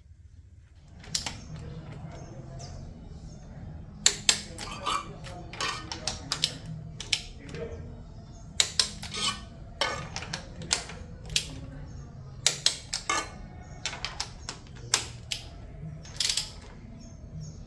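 Irregular sharp metallic clicks and clinks of a torque wrench and socket extension working the spark plugs down into a VW EA111 engine's cylinder head.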